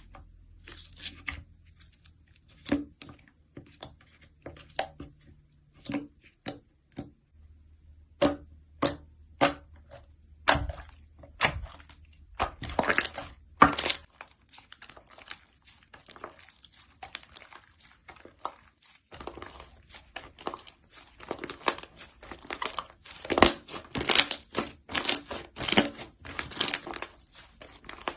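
Slime being squeezed and pressed by hand, a run of short crackling, squishing pops, a second or so apart at first and coming thicker and louder in the second half.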